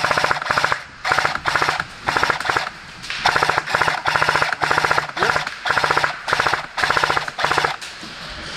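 Airsoft M249 Mk46 electric light machine gun firing a string of short full-auto bursts, each a rapid rattle of shots over the whir of its motor and gearbox.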